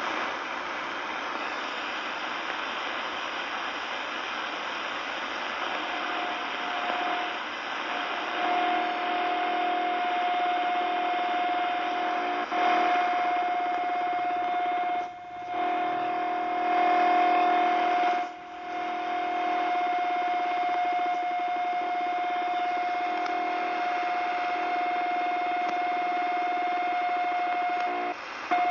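CB radio receiver on 27.145 MHz hissing with static. From about six seconds in, an unidentified signal comes in over it as a steady whistle-like tone, with a lower buzzing layer that comes and goes. The signal cuts out briefly twice.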